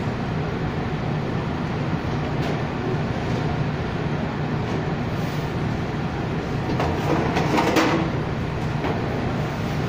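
Steady mechanical hum and rumble of commercial bakery machinery and ventilation, with a brief louder stretch of clattering about seven seconds in.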